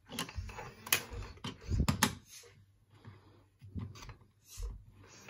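Irregular plastic clicks and knocks from a small L0-LA59 droid toy being handled and turned in the hand, the sharpest about one and two seconds in.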